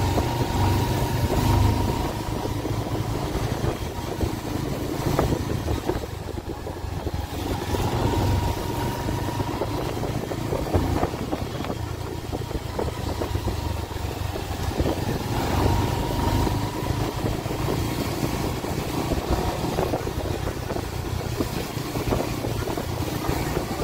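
Motorcycle engine running steadily while riding along a rain-soaked road, with the hiss of the tyres on the wet surface.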